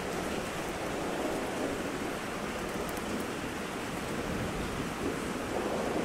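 Rain falling steadily, an even, unbroken hiss with a low rumble underneath.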